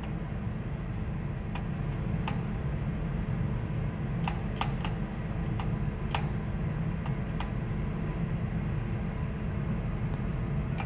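Steady low machinery and ventilation hum on a ship's bridge, with about eight short, sharp clicks scattered through the middle.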